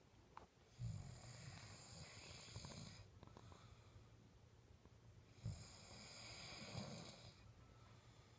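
A person snoring faintly: two long snoring breaths, each opening with a low rattle, about four and a half seconds apart.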